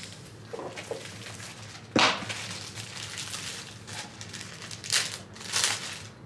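Packaging of a new snow brush being torn open and rustled, with a sharp rip about two seconds in and more rustling near the end.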